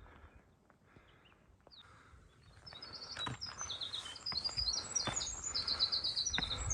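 A songbird singing a long, rapid series of high chirping notes that begins about two and a half seconds in, over the footsteps of someone walking.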